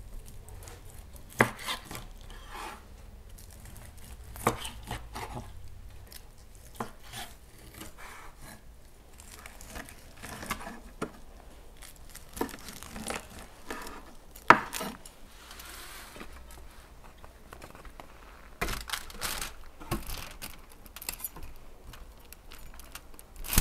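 A large kitchen knife cutting through the crisp, charred skin of a baked eel on a wooden board: crunching, crackling cuts broken by sharp knocks of the blade reaching the board, the loudest about a second and a half, four and a half and fourteen and a half seconds in. Near the end, a spatula and knife scrape and clink on a foil-lined tray.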